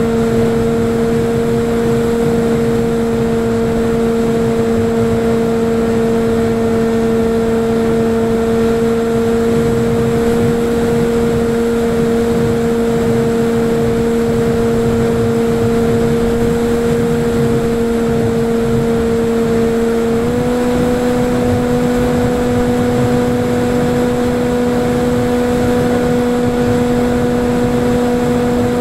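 Falcon Evo flying wing's electric motor and propeller, heard through its onboard camera, running with a steady hum over wind rush. The pitch steps up slightly about twenty seconds in as the throttle is raised.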